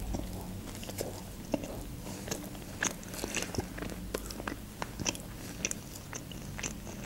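Close-up chewing and biting of a toasted club sandwich, with many short, sharp mouth clicks scattered irregularly throughout.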